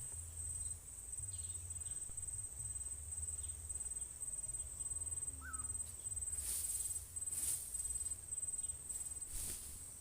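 Cricket trilling steadily, a continuous high, finely pulsed tone, with a few brief rustles about six to seven seconds in and near the end.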